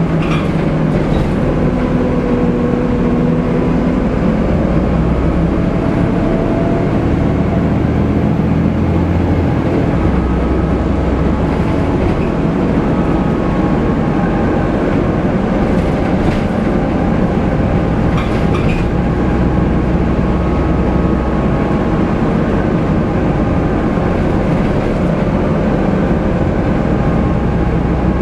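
Inside a ZF Volvo B7TL double-decker bus under way: the steady drone of its six-cylinder diesel engine and drivetrain with road noise, and the loud engine cooling fan.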